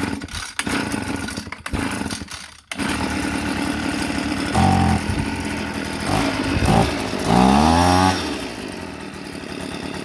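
Tanaka 24cc two-stroke leaf blower engine being pull-started after sitting unused a while: it fires unevenly for the first couple of seconds, catches at about three seconds and runs, and is revved with the throttle several times, one rev rising in pitch near eight seconds.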